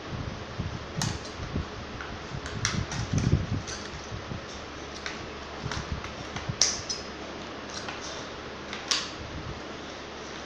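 Small plastic toy pieces clicking and knocking irregularly as they are picked up, handled and set down in a plastic case, over a steady background hiss. The sharpest click comes a little past halfway.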